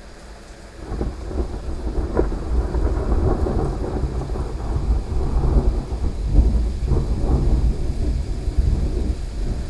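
Thunder rolling in about a second in and rumbling on, with a few sharper cracks, over the steady hiss of heavy rain.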